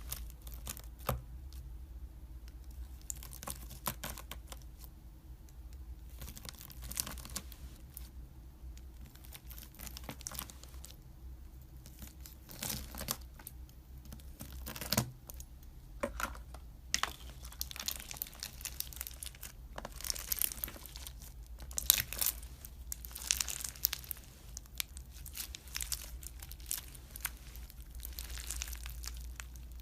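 Slime being stretched, pulled and pressed by hand, giving irregular crackling and tearing sounds, busiest in the second half.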